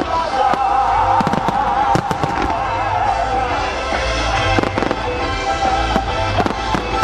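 Fireworks bursting in quick runs of sharp bangs, over music played for the show.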